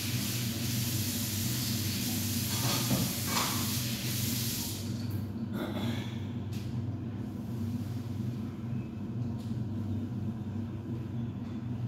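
Minced chicken sizzling in a wok, a steady hiss that dies away about five seconds in, over a steady low hum.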